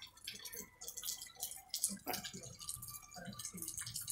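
Rainwater dripping and splashing near a roof overhang: many irregular sharp drips over faint rain hiss.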